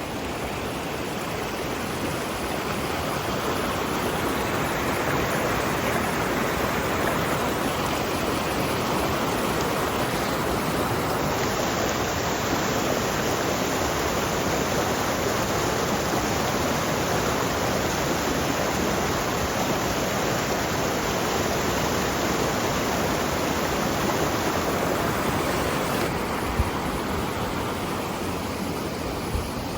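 Steady rushing noise, loud and even throughout.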